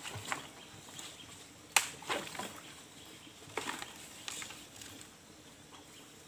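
A long bamboo pole jabbed repeatedly into a tangle of dry bamboo and brush at the water's edge, beating the cover to drive fish out. Scattered knocks and crackles, the sharpest about two seconds in.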